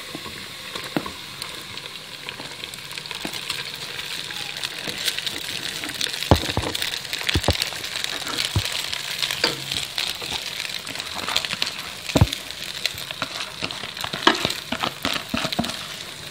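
Hot oil with fried garlic sizzling in a pan as boiled rice is tipped in and stirred with a wooden spatula, a steady sizzle with small crackles. Several sharp knocks of the spatula against the pan, the loudest about six and twelve seconds in.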